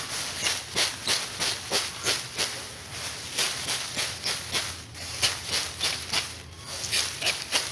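Dry rice stalks being worked by hand during harvest, making rapid, irregular swishing and rattling strokes, about three or four a second.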